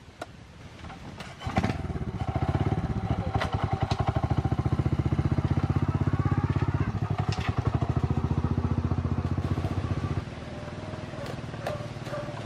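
A small engine comes in abruptly about a second and a half in and runs with a fast, even pulse. About ten seconds in it drops to a quieter, steady running.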